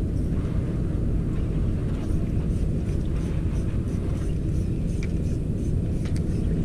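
Small boat engine running steadily, a low drone, with faint light ticks over it.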